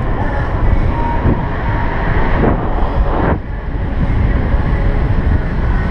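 Wind buffeting an action camera's microphone, with road rumble from a bicycle moving along a city street. A brief sweeping swish comes about halfway through.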